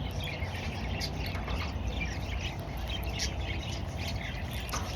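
Budgerigar chattering: a continuous run of short, high chirps and squawks.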